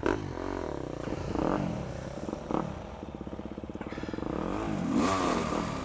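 Two-stroke dirt bike engines revving up and down repeatedly as the bikes move off along the trail.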